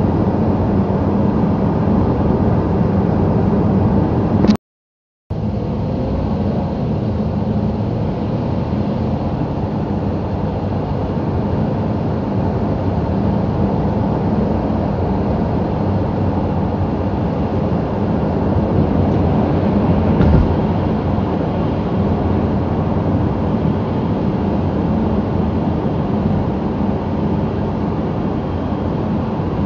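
Steady engine and tyre noise of a car driving on a wet road, heard from inside the cabin. The sound cuts out completely for under a second about four and a half seconds in.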